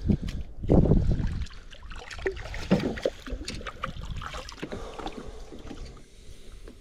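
Wind buffeting the microphone in gusts, with scattered small knocks and rustles of handling.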